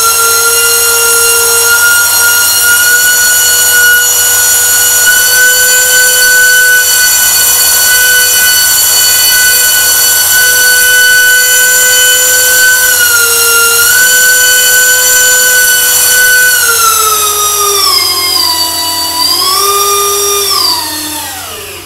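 Brushless RC motor spinning a three-blade 3052 propeller at high throttle on a thrust-test stand: a loud, steady high-pitched whine. Its pitch dips briefly about halfway, then falls, rises again briefly, and winds down as the throttle is cut near the end.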